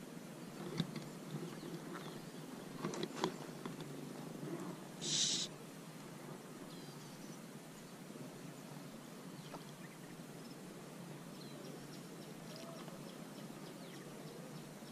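Steady outdoor ambience with a bird hooting in the background, a few light clicks in the first few seconds, and one brief hiss about five seconds in.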